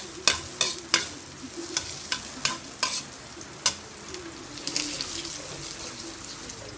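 Garlic, onion and ginger sizzling in hot oil in a metal wok, with a steady hiss. A metal ladle knocks and scrapes against the wok as it stirs and presses them, about a dozen sharp knocks, most in the first four seconds.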